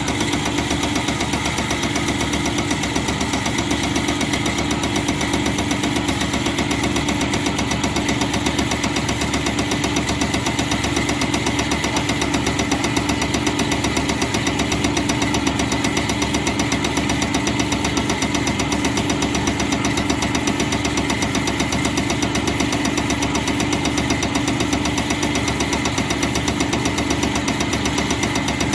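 Caterpillar C7/C9 HEUI diesel injector firing on a test bench: a fast, even ticking that never lets up, over the steady hum of the bench's motor and pump.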